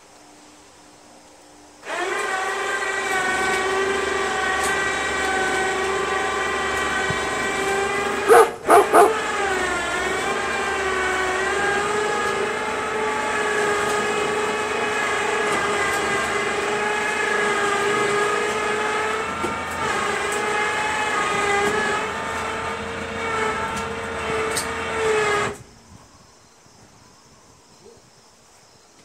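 Inexpensive remote-controlled electric winch motor running with a steady whine as it pulls the riding mower in for loading. About a third of the way through it stops briefly with a few loud clanks, then restarts, its pitch sagging and recovering. It cuts off suddenly near the end.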